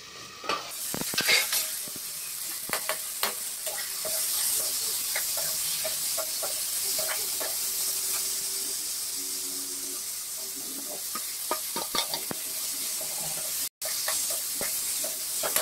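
Potatoes, onions and tomatoes sizzling in a steel kadhai while a spatula stirs and scrapes through them, with scattered clicks of the spatula against the pan. The sound cuts out for a moment near the end.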